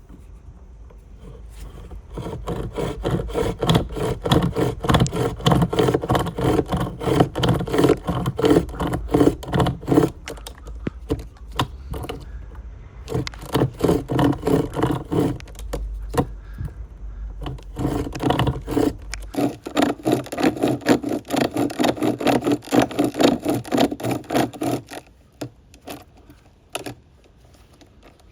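Wood being scraped or rasped with fast, repeated strokes, in several spells with short pauses between them and a few scattered clicks near the end.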